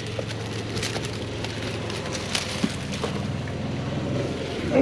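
Leaves, branches and dry palm fronds rustling and crackling as someone pushes through brush, over a steady low machine hum. A sharp loud crack comes right at the end.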